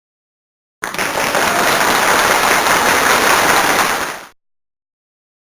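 A burst of dense crackling noise lasting about three and a half seconds, starting sharply a little under a second in and cutting off abruptly, with dead silence around it.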